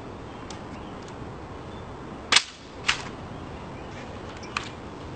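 Sharp clacks of a rifle being handled in a ceremonial drill inspection, the rifle slapped and snapped between gloved hands. There are three in all: the first, about two seconds in, is the loudest, the second follows half a second later, and a smaller one comes near the end.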